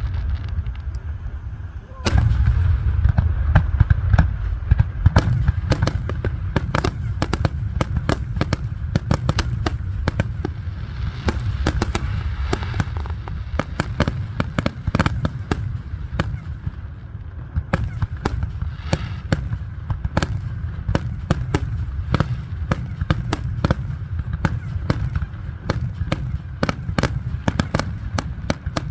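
Fireworks display: a sudden loud boom about two seconds in, then a dense run of rapid crackling pops over deep rumbling booms.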